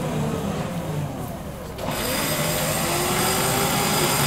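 Suzuki Jimny in deep mud, its engine running while an electric winch whines as it pulls on the cable. The sound changes abruptly about two seconds in.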